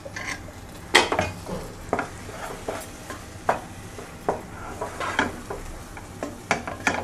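Wooden spatula stirring and scraping thick rava kichadi around a nonstick pan, folding in a spoonful of ghee. The scrapes and light knocks come irregularly, the strongest about a second in.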